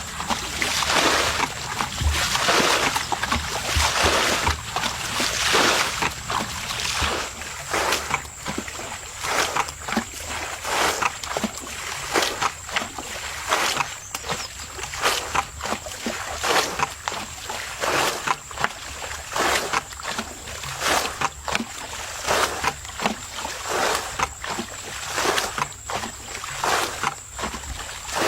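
Water splashing and sloshing in repeated strokes, broad washes at first, then quicker, sharper splashes about one or two a second, as in hands or a scoop working through shallow muddy water.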